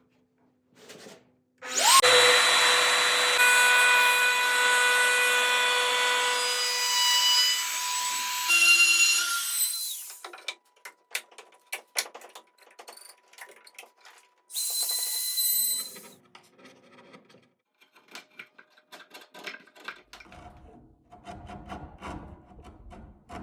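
A woodworking power tool runs with a steady whine for about eight seconds, then stops. Knocks, clicks and rubbing of wood follow, broken by a second short burst of the tool about two-thirds of the way through.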